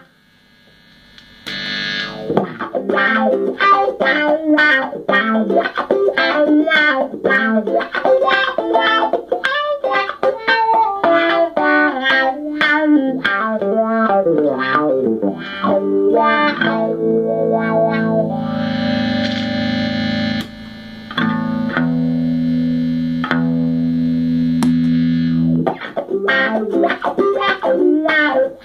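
Electric guitar played through a compressor pedal into a small Peavey combo amp. After a short pause, a run of quick picked single notes gives way to held chords with long, even sustain, then quick picking starts again near the end.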